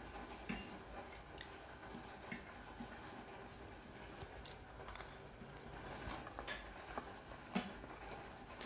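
Faint eating sounds: soft wet chewing of creamy pasta with a few light clicks of a fork against a plate.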